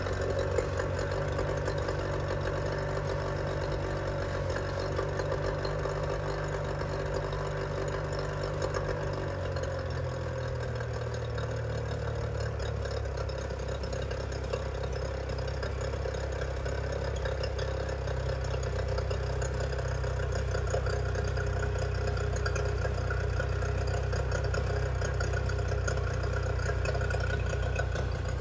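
Outboard motor idling steadily after its carburetor was cleaned of junk and its spark plugs changed. About ten seconds in its speed drops a little and settles.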